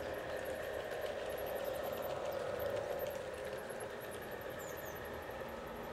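Garden-scale model shunting locomotive running along its track with a loaded log wagon. It gives a steady whir of the electric motor and gears, with faint light ticking from wheels on the rails.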